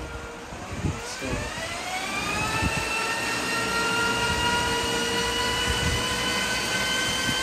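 250 W Zipforce friction-drive e-bike motor spinning up under pedal assist, its roller driving the tyre of a bike on a stand: a whine that rises in pitch over about a second and a half, then holds steady.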